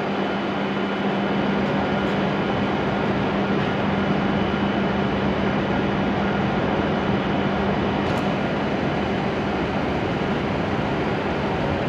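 Steady running noise of a stationary W7 series Shinkansen train's onboard equipment and the station's platform ambience, with a low hum that stops about three-quarters of the way through.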